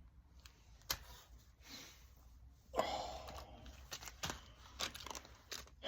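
Small objects being handled: scattered light clicks and taps, with a brief breathy rustle about three seconds in.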